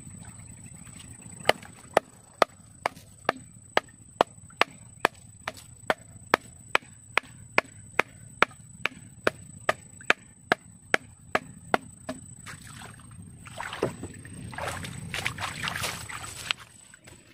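Steady chopping, a blade striking wood in even blows a little over two a second for about ten seconds, then a few seconds of rustling and scraping.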